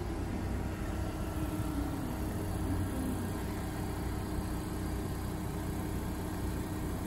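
Kintetsu 5211-series and 9000-series electric train standing at the platform, its onboard equipment giving a steady low hum.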